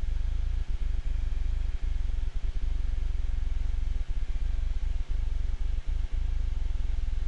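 Steady low drone of an aircraft engine in the cockpit, heard through the intercom during a pause between radio calls, with many brief dropouts.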